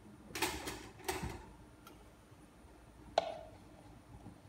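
Handling sounds of tools and parts on a workbench: a quick cluster of knocks and rustles in the first second or so, then one sharp click with a short ring about three seconds in.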